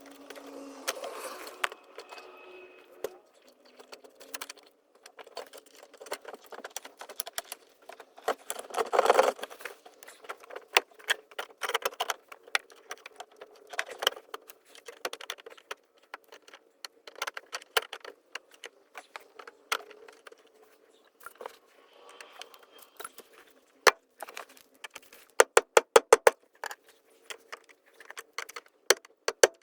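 Hand tools and metal parts clinking, tapping and rattling during work on a car's fuel pump, with a quick run of evenly spaced clicks near the end.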